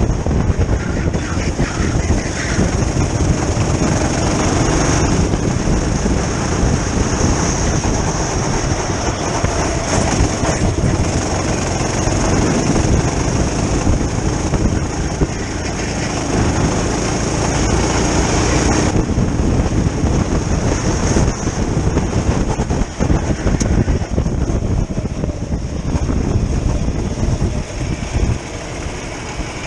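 Go-kart engine running at racing speed, heard onboard, over a dense rushing noise of wind on the microphone. The sound eases a little near the end.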